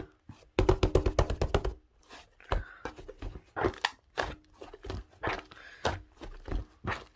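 Slime being mixed and pressed by hand, making sticky clicks and pops: a quick run of them about half a second in, then scattered single snaps.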